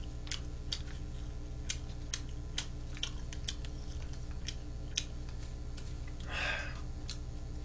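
Light, sharp clicks at an irregular pace, roughly two a second, over a steady low hum, with a short soft rustle about six and a half seconds in.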